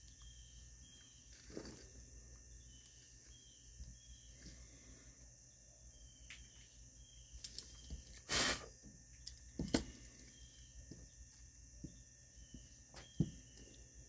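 Scattered small knocks and clicks of hand tools and carburetor parts being handled on a shop towel, the loudest a short rattle a little past halfway. Under them a steady high hiss with faint chirps repeating about once a second.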